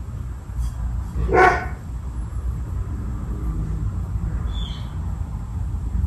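54-inch Casablanca Nouvelle ceiling fan running with a steady low rumble. About a second and a half in, a dog barks once, louder than the fan.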